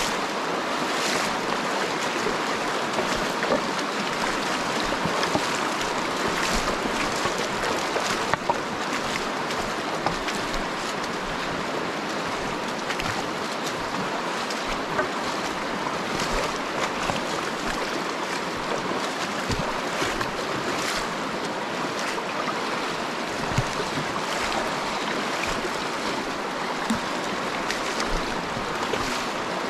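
Shallow river rushing steadily over rocks, a continuous water noise, with occasional short splashes and knocks from wading through the current.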